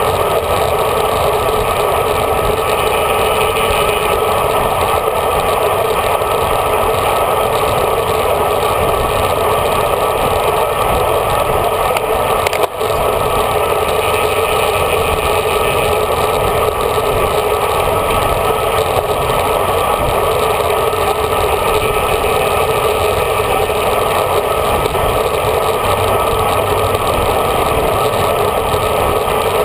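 Steady rush of wind and road noise on a handlebar-mounted GoPro while riding a road bike in a group at pace, with one brief break about thirteen seconds in.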